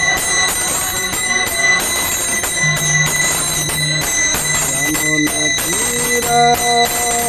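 Devotional singing: a man's voice holding long notes that slide from one pitch to the next, with bell-like ringing behind it.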